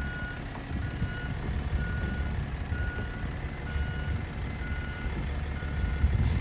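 A bus's reversing alarm beeping, a single steady tone about once a second, seven times, over the low rumble of its diesel engine as it backs up close to a fence.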